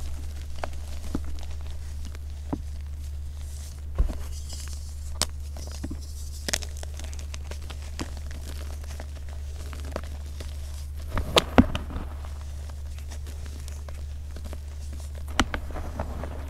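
Hands crushing and crumbling reformed gym chalk blocks, dyed blue and plain white, into powder: scattered soft crunches and crackles, the loudest cluster about eleven seconds in. A steady low hum runs underneath.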